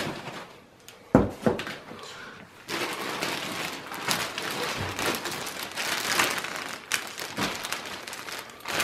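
Plastic wrapping crinkling and rustling as a bagged, padded chair piece is lifted out of a cardboard box, with a single sharp knock about a second in.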